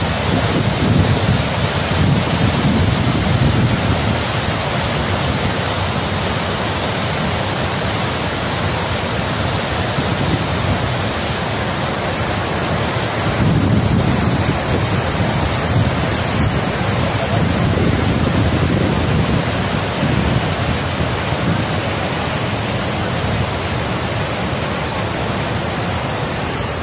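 Steady loud rush of a fast mountain river's whitewater rapids pouring over boulders. Wind buffets the microphone now and then, swelling into a low rumble about a second in and again around the middle.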